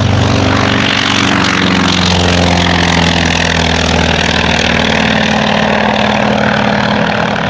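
Goodyear FG-1D Corsair's Pratt & Whitney R-2800 eighteen-cylinder radial engine running steadily.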